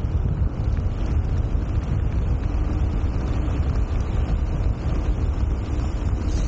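Wind buffeting the action camera's microphone while riding a bicycle: a loud, steady low rumble.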